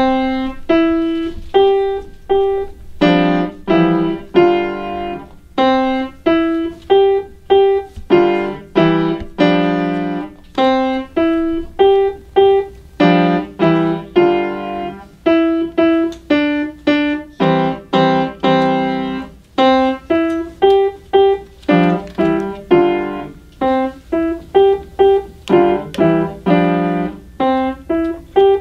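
A student playing a grand piano: a simple melody of separately struck notes, with lower notes added under some of them and short pauses between phrases.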